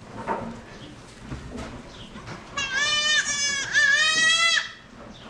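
Goat bleating: two long, high calls back to back, about three seconds in.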